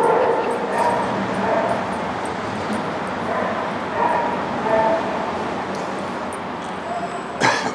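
Several small dogs yipping and barking in short calls, with a sharp knock near the end.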